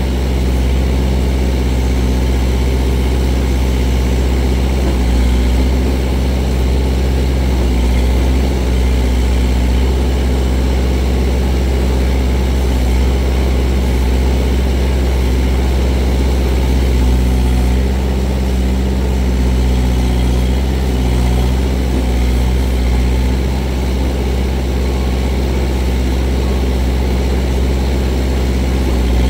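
Kubota L48 tractor-loader-backhoe's diesel engine running steadily while the backhoe is worked, the pitch shifting only slightly.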